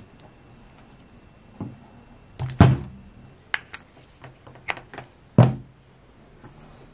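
Knocks and clicks of a black power cable and its plug handled on a workbench and pushed into an orange extension-cord socket. There are about half a dozen sharp knocks, the two loudest about two and a half and five and a half seconds in.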